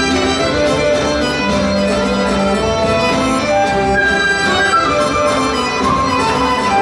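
Serbian folk dance music playing at a steady, lively pace as accompaniment to a kolo chain dance.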